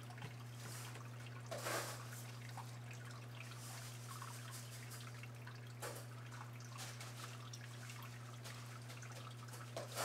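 Water dripping and trickling in a paludarium, with a few louder drips about two seconds in, near six seconds and at the very end, over a steady low hum.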